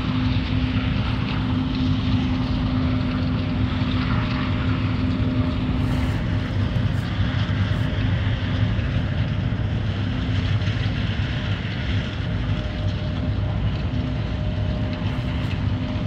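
Steady hum of running machinery, with a few held low tones over a rushing haze and no change in speed.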